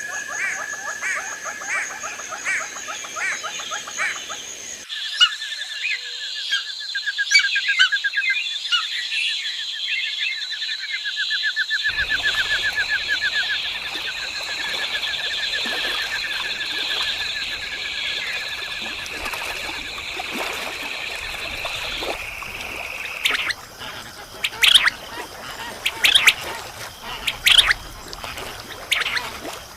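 Birds calling: fast, even trills and chirps. The sound changes abruptly a couple of times, and near the end it gives way to sharp, separate calls.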